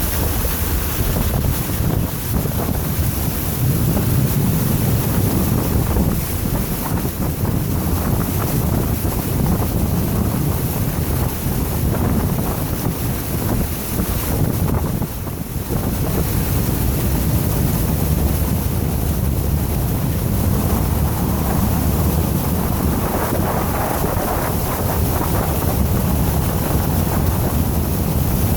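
A vehicle driving through floodwater on a road: a steady low rumble with water rushing and washing around the tyres, briefly dipping about halfway through.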